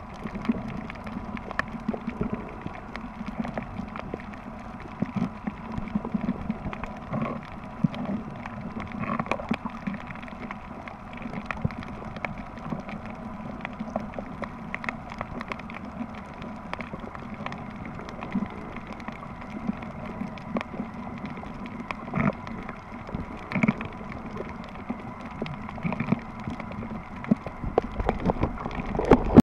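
Underwater reef sound picked up by a submerged camera: a steady muffled wash with many scattered clicks and crackles.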